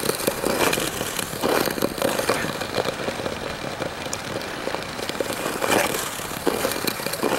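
Ice skate blades gliding and scraping over the canal ice as the camera-holder skates: a continuous crackling hiss broken by short scrapes of the strides.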